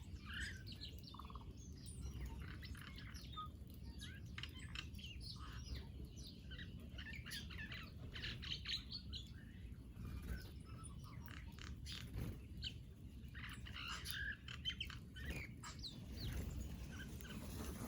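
Several small birds chirping and twittering busily, with many short overlapping calls over a low steady background hum.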